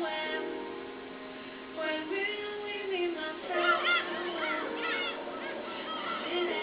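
Anime soundtrack with soft held music notes. From about two seconds in, many short high chirping calls are layered over it, each rising and falling in pitch, thickest in the middle.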